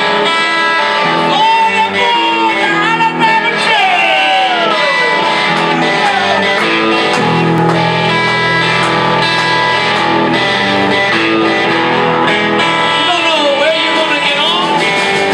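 Live electric blues band playing: electric guitars, bass guitar and drums, with the lead guitar bending notes.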